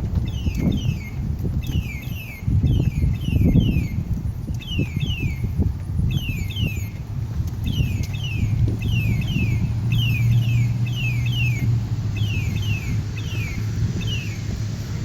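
Rhythmic high-pitched squeaking, short chirps mostly in quick pairs, repeating a few times a second, over low outdoor rumble and a steady low hum from a vehicle in the middle.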